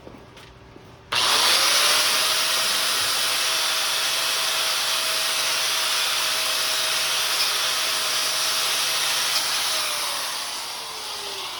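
Electric angle grinder starting up about a second in and running steadily as it cleans a flux-core weld bead, then winding down with a falling pitch near the end as it is switched off.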